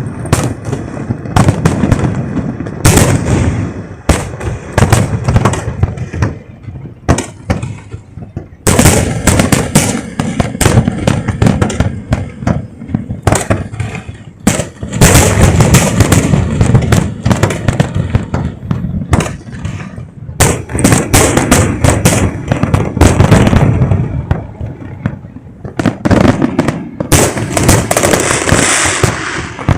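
A fireworks display heard at close range: rapid, irregular bangs of bursting shells, often overlapping, with a dense run of crackle near the end.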